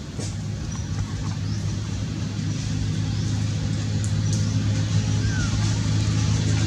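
An engine running with a steady low hum that grows gradually louder, with a few faint clicks over it.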